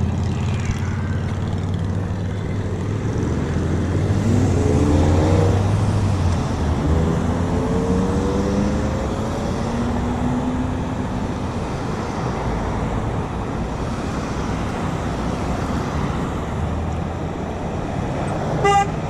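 Road traffic: vehicle engines running steadily, then pulling away with their pitch rising, and a short car horn honk near the end.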